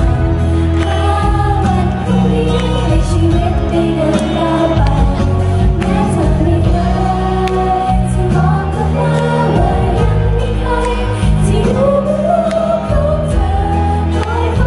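Live pop music: a girl idol group singing together into handheld microphones over an instrumental accompaniment.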